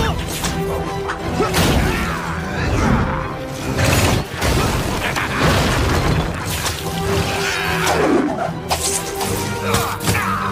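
Dramatic action-score music under fight sound effects: several sudden impacts and crashes of breaking stone debris, and the splat of a web shot.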